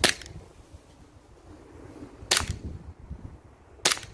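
Glock 17 Gen 4 CO2 blowback BB pistol fired three times, each shot a sharp pop followed at once by a second snap, spaced about one and a half to two and a half seconds apart. The shooter suspects the CO2 is too cold to give full power, and the steel BBs keep lodging in the barrel.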